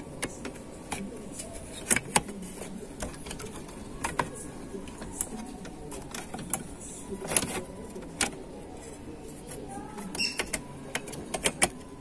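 Sheet-metal bracket of a PC chassis being handled and fitted against the steel frame: irregular light metallic clicks and taps, a few of them sharper, scattered throughout.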